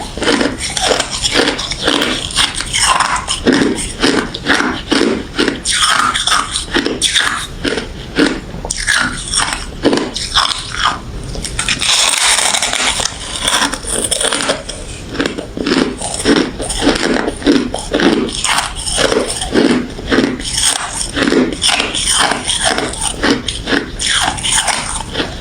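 Refrozen crushed ice bitten and chewed close to the microphone: a steady run of loud, crisp crunches, several a second. About halfway through the crunching stops for a moment, replaced by a brief hissing rustle.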